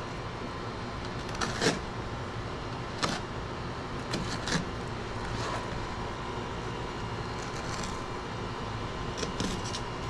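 Scattered sharp clicks and cracks from a knife working through an alligator gar's hard, scaled hide, a few at a time, over a steady background hum.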